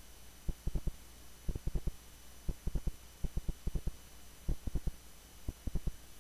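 Soft low taps in quick little runs about once a second, over a faint steady electrical hum.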